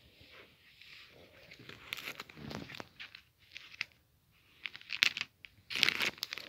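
Packaging crinkling and rustling as it is handled, with irregular sharp crackles, loudest about five to six seconds in.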